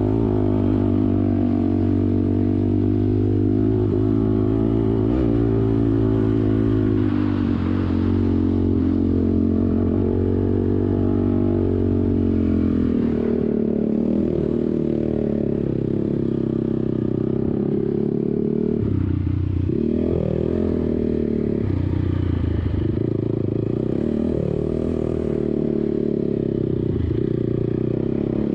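ATV engine running under throttle while riding, a steady drone whose pitch eases off and picks back up several times in the second half.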